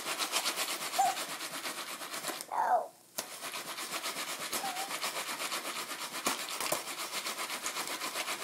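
Jiffy Pop aluminium pan being shaken back and forth on an electric stovetop burner: a steady, rhythmic scraping several strokes a second, with sharp pops of kernels bursting inside the swelling foil dome.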